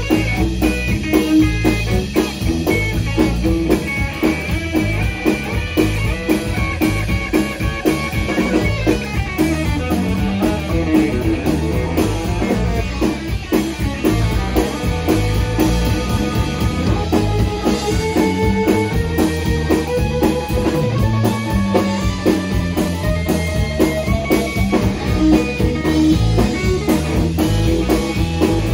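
Live three-piece rock and roll band playing an instrumental stretch: electric guitar playing lead lines over electric bass and drum kit, with no singing.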